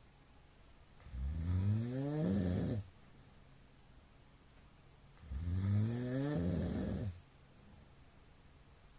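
A man snoring loudly in his sleep: two long snores about four seconds apart, each under two seconds long and rising in pitch.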